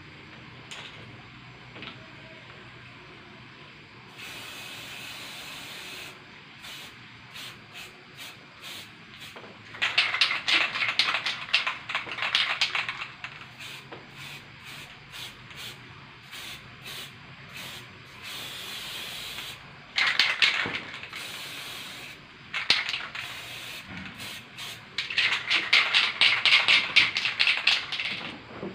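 Aerosol spray paint can hissing in several short bursts with quieter pauses between, as white paint is sprayed on in patches.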